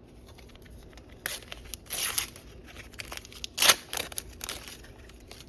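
A Panini sticker packet being torn open and its wrapper crinkled: a few short rustling tears, the sharpest about three and a half seconds in.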